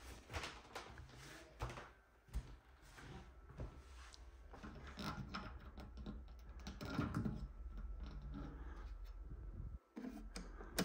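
Footsteps, rustling and knocks of someone moving through a small room and handling a door, ending in a sharp click.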